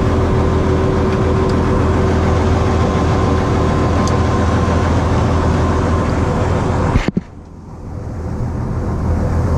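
Bizon combine harvester's diesel engine idling steadily with a low hum. About seven seconds in, the sound cuts off suddenly and returns much quieter, slowly growing louder again.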